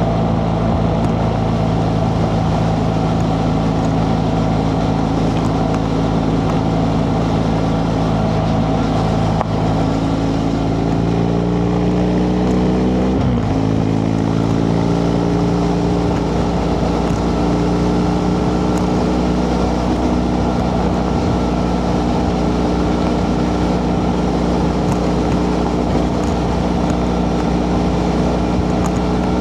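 BMW F 800 GS parallel-twin engine through its stock exhaust, running under way at steady revs. About ten seconds in the revs climb for a few seconds, break briefly, then hold steady at a higher pitch, over steady road and wind noise.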